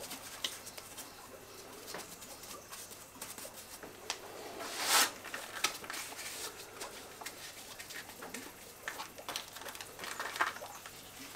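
Mortar being pressed by gloved hands into the joints of a granite stone wall. Soft scrapes, rubs and small taps come at irregular moments, the loudest a brief scrape about five seconds in.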